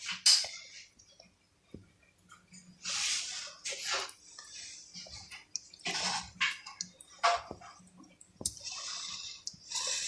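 A metal spoon scoops thick chili con carne from a frying pan and spreads it onto a sausage in a bun. It makes wet, squelching scrapes in several short bursts, with one sharp click about two-thirds of the way in.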